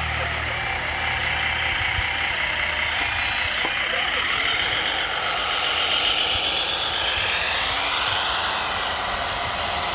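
Radio-controlled scale trucks running: a steady whine of motors and gears, with tones that slide up and down in pitch as they change speed.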